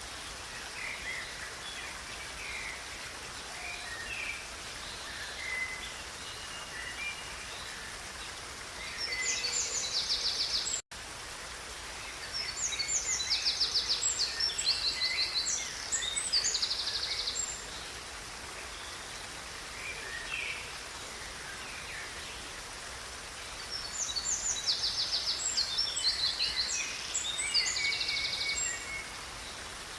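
Steady rush of a river with songbirds singing over it: scattered chirps and, three times, louder stretches of fast trilled song. The sound cuts out for a split second about a third of the way in.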